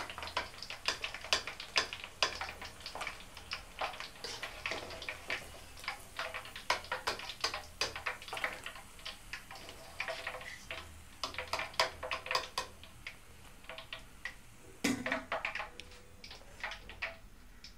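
Metal perforated ladle clinking and scraping against a metal kadai while deep-fried chicken pieces are lifted out of the oil: a quick, irregular run of light clicks and taps that thins out near the end.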